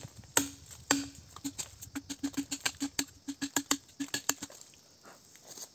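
Green bamboo tube being chopped: sharp hollow knocks, each with a short ringing tone, two spaced strikes and then a fast run of about four or five a second that stops about four and a half seconds in.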